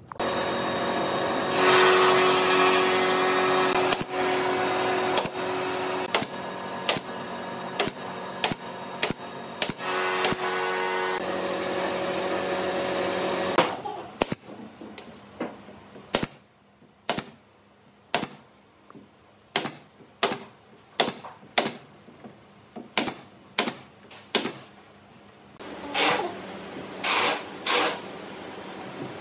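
An electric power tool motor runs steadily for about fourteen seconds, its pitch shifting a few times, then stops. A run of sharp knocks follows, about one a second, with two short bursts of noise near the end.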